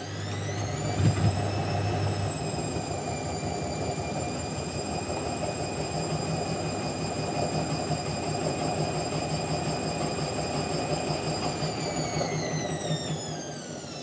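Indesit front-loading washing machine on a spin cycle: the motor's high whine rises over the first couple of seconds, holds steady, then falls away near the end as the drum slows. Under it runs a steady rumble, with a knock about a second in.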